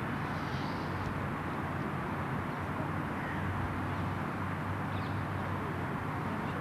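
Steady outdoor background noise: a constant low hum under an even hiss, with a few faint short high chirps.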